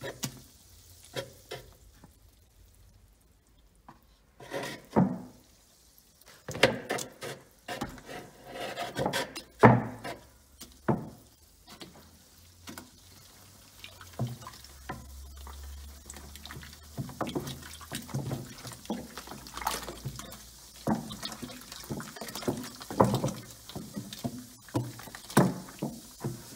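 Flat wooden paddle punching down the fermenting head of kaffir lime and sultana wine must in a plastic bucket during first fermentation: irregular wet sloshing and splashing of the pulpy liquid.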